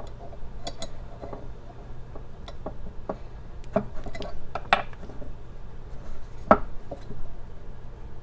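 Small steel revolver parts of a Rock Island M206 clicking and clinking against the frame as the hammer and lockwork are handled and fitted back together: a scatter of short, sharp metal clicks, the loudest near the middle and about six and a half seconds in.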